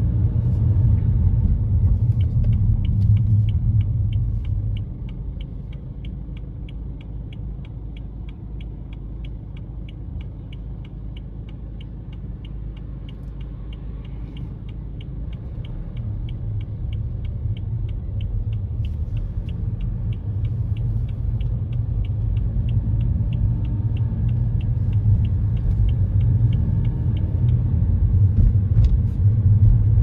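Car driving, heard from inside: the low road and engine rumble drops as the car slows and waits at an intersection, then builds again as it pulls away. Over it a turn signal clicks steadily, about two or three clicks a second, and stops near the end.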